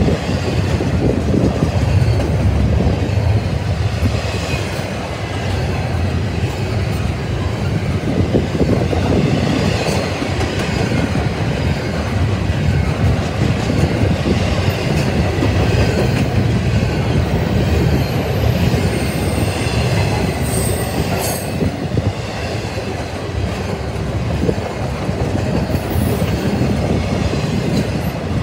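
Double-stack intermodal container train passing close by: a steady noise of steel wheels on rail and rattling well cars. A faint high wheel squeal comes in briefly about two-thirds of the way through.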